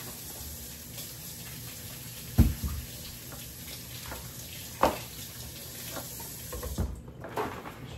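Kitchen tap running into a sink in a steady rush, with two sharp knocks, the first the louder; the water shuts off about seven seconds in.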